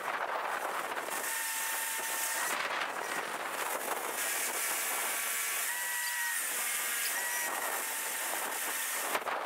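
Mobile crane machinery running: a steady hiss with a thin whining tone that sets in and drops out several times.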